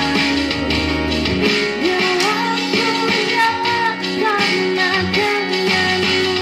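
Live song performance: a voice singing a melody over guitar accompaniment at a steady level.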